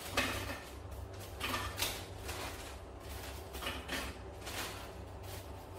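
Plastic wrapper of a roll of digestive biscuits crinkling and rustling irregularly as biscuits are pulled out of the packet, with a low steady hum underneath.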